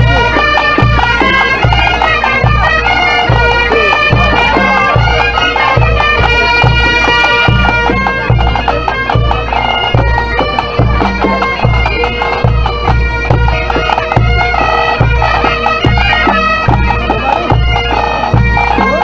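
Breton pipe band playing a folk dance tune: bagpipes carrying a fast melody over a steady drone, with a bass drum beating about twice a second.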